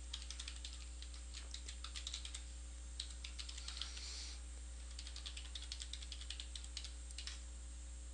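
Typing on a computer keyboard: quick runs of keystrokes with short pauses between them, stopping about seven seconds in, over a faint steady hum.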